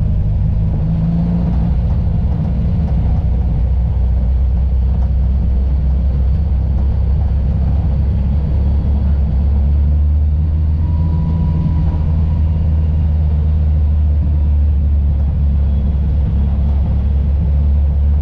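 Volvo 242 rally car's engine heard from inside the cabin, running at low revs as the car rolls slowly: a steady low drone.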